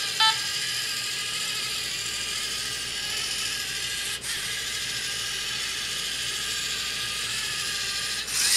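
Lego Mindstorms EV3 Snatcher robot's motors and plastic gear train whirring steadily as the tracked robot turns in a circle searching for the infrared beacon. A brief pitched beep sounds just after the start, and the whirring dips for a moment about four seconds in.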